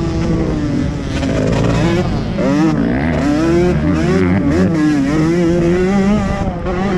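Motocross dirt bike engine under way on a track, its pitch rising and falling again and again as the throttle is opened and closed.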